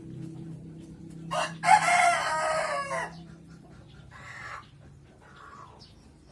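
A rooster crowing once, loud, starting about a second and a half in and lasting under two seconds, its pitch dropping at the end; a few short, fainter calls follow.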